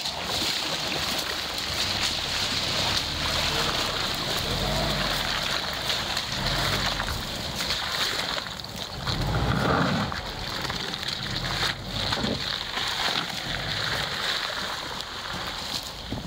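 Subaru Forester's flat-four boxer engine running at low speed as the car crawls through muddy water-filled ruts, tyres splashing and sloshing through the puddles, with a louder surge about two-thirds of the way through.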